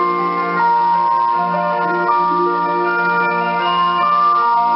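Instrumental music from a shortwave radio broadcast: a slow melody of held, organ-like notes that change in steps, with narrow-band, muffled shortwave reception.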